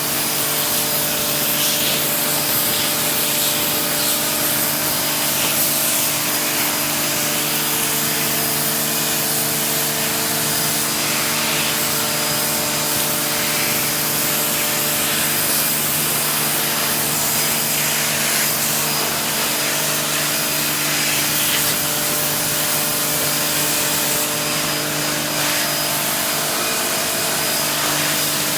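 Pressure washer running steadily, its motor and pump humming under the hiss of the water jet as it sprays mud and silt off wooden wall studs and base plates.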